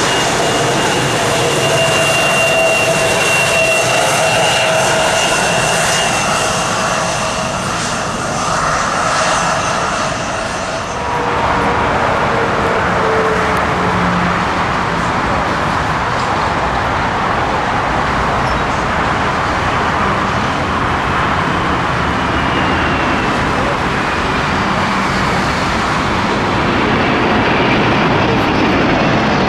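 Jet airliner engines passing close by: a loud steady rush with a high, steady whine that drops away about eleven seconds in, leaving a broader rumbling rush with faint sliding tones near the end.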